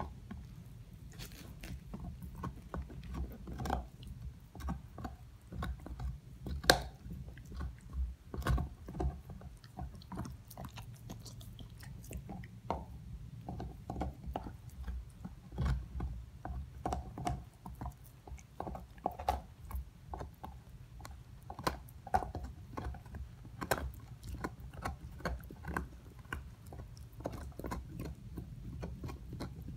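A dog gnawing on a large bone: irregular crunching and scraping of teeth on bone, with sharper cracks now and then, the loudest about seven seconds in.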